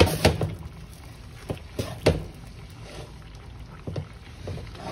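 Kitchen utensils and cookware knocking and scraping: a handful of knocks, the loudest at the start and about two seconds in, as stuffed vegetables are served out of the cooking pot.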